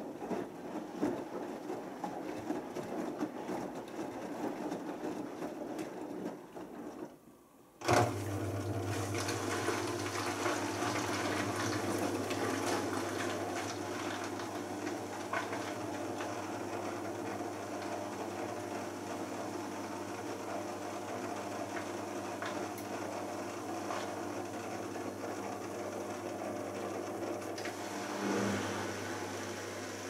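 Beko front-loading washing machine tumbling its load in sudsy wash water, then going quiet for a moment. About eight seconds in, a steady, even electric hum starts abruptly and holds, as the machine begins to drain at the end of the main wash.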